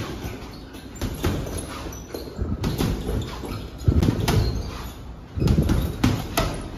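Boxing gloves punching a hanging heavy bag: a series of dull thuds in quick, irregular combinations, about a dozen hits.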